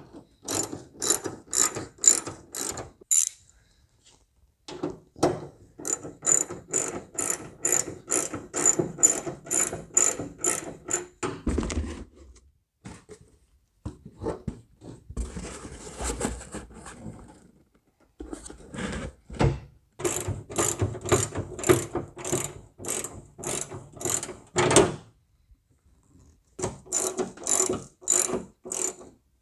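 Hand socket ratchet clicking in runs as it drives in hood hinge bolts, several clicks a second with short pauses between runs.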